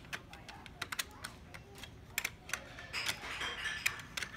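Toy cookie pieces and a red plastic toy tool clicking and tapping against a metal baking sheet in quick, irregular knocks, with a short scratchy scrape about three seconds in.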